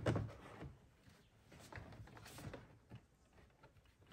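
Faint clicks and rustling of plastic dash parts and wiring connectors being handled, with a louder bump right at the start.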